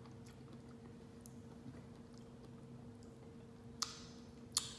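A man quietly chewing a mouthful of gumbo over a steady low hum, with two sharp clicks near the end.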